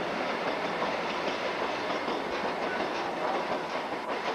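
Passenger train running along the track, its wheels rumbling and clattering steadily on the rails.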